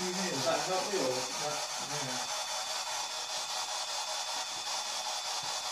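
Steady hiss with a faint, thin high-pitched whine: the noise floor of a quiet room recorded at high gain. Faint murmuring voices during the first two seconds.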